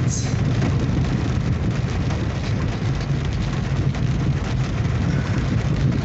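Car driving slowly along a flooded road, heard from inside the cabin: a steady low engine and road rumble under a hiss of rain.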